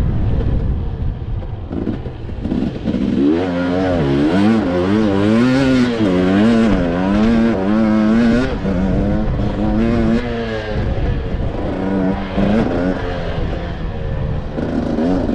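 Dirt bike engine revving hard, its pitch swinging quickly up and down with the throttle, loudest a few seconds in and again near the end, over steady wind rumble on the microphone.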